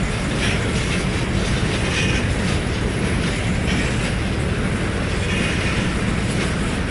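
CN freight train cars rolling past on the rails: a steady rumble of wheels on track, with a brief higher-pitched screech of wheel noise every second or so.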